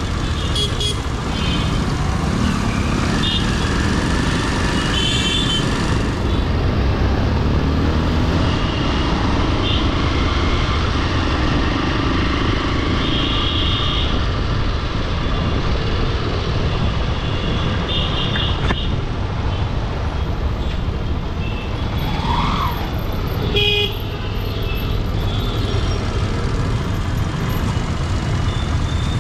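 Busy road traffic: vehicle horns honking in short blasts again and again over a steady rumble of engines and road noise.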